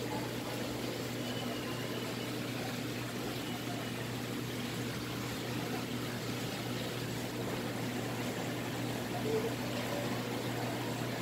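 Steady low hum with an even hiss of running water: aquarium pumps and filtration circulating water through a saltwater reef tank.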